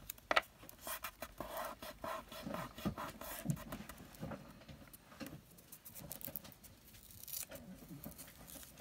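Fingers rubbing and pressing a strip of glitter washi tape down onto a paper tag: irregular soft scrapes and rustles of paper and tape, with a sharp tap just after the start.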